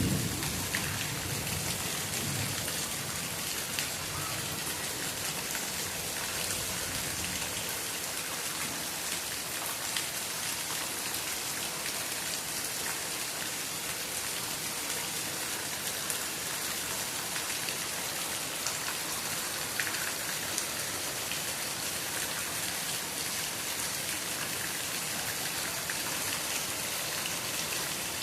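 Steady rain falling, a dense even hiss with scattered drops spattering on surfaces. A low thunder rumble dies away in the first couple of seconds.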